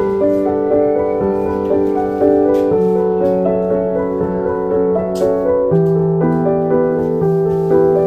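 Background music: a piano melody of held notes over changing bass notes.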